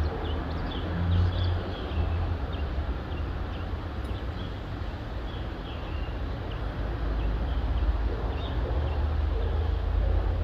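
Dawn city ambience: a steady low rumble of distant traffic under many short, high chirps from small birds scattered throughout.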